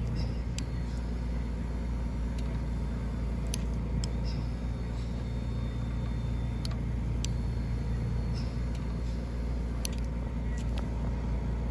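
Electric recliner's power actuator motor running steadily with a low drone as it drives the seat linkage, with a few faint clicks scattered through.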